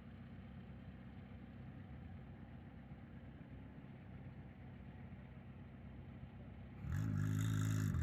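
A car engine idling with a steady low pulse. About seven seconds in, a much louder engine close by revs up and settles back.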